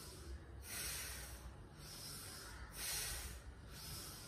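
A woman's audible exercise breathing: two strong breaths about two seconds apart, timed to the leg going up and coming down in a seated knee-rotation exercise.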